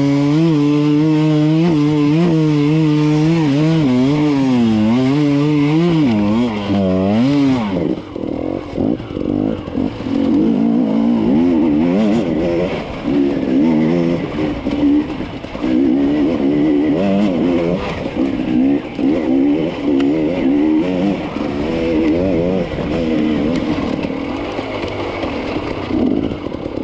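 KTM enduro dirt bike engine under the rider, held at high revs that rise and fall slightly, then dropping in pitch about eight seconds in and revving in short, uneven blips as the throttle is worked over rough, rocky ground.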